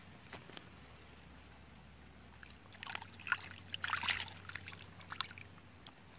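Shallow water splashing and sloshing as a hooked eel thrashes and is pulled up through the weeds. A flurry of splashes starts about three seconds in and lasts about two seconds.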